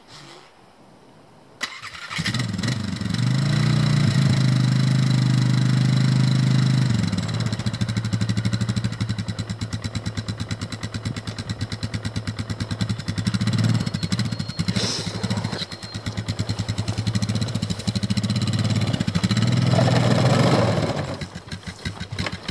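ATV engine starting up about two seconds in, then running under way, its level rising and falling with the throttle, and dying down near the end.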